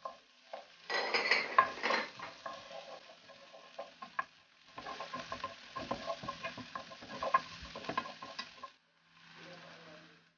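Chopped spring onions and garlic sizzling in oil in a frying pan while a wooden spoon stirs them, scraping and tapping against the pan. The stirring comes in two spells, one about a second in and a longer one from about five seconds in until near the end.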